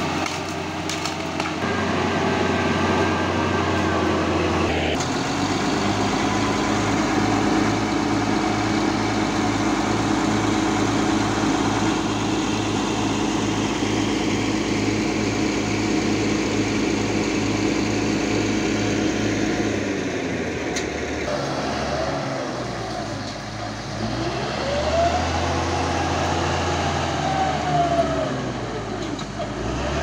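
Cat D6G crawler bulldozer's diesel engine running steadily under load as it pushes soil. Near the end the engine note changes and swings up and then back down in pitch.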